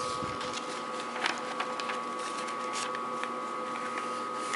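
Paper pages of an old stapled booklet being turned by hand: light rustling with small ticks of paper, a few stronger ones just over a second in, over a steady hum.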